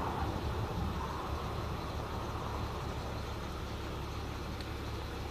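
Steady low rumble of a motor vehicle.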